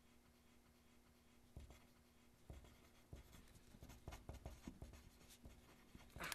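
Handwriting on lined paper: the writing tip scratches across the page in quick short strokes, starting about one and a half seconds in and busiest near the end. A low steady hum runs underneath.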